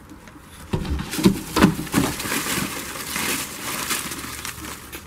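Dry leaves and twigs rustling and crackling close to the microphone, with a few sharp snaps and knocks about a second in.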